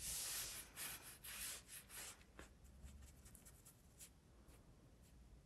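Paintbrush rubbing over watercolour paper: one longer scrub at the start, then a run of short quick strokes for about two seconds, after which only faint light touches remain.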